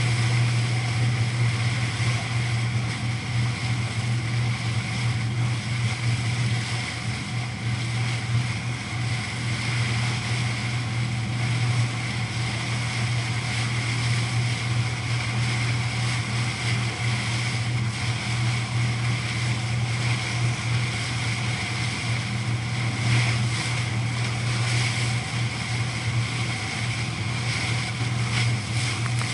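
Canal tour boat's engine running at a steady cruise, a constant low drone with a fainter higher hum above it, over the wash of water along the hull.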